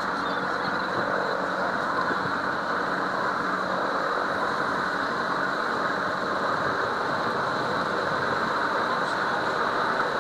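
Steady drone of a boat under way, its engine running evenly beneath a wash of wind and water noise.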